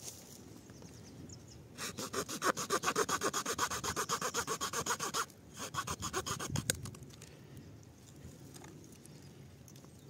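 A Victorinox Ranger pocketknife's wood-saw blade sawing through wood in quick, even strokes for about three seconds. After a brief pause, a shorter run of strokes follows.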